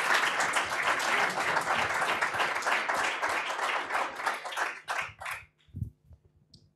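Audience applauding, thinning to a few scattered claps and dying away about five seconds in.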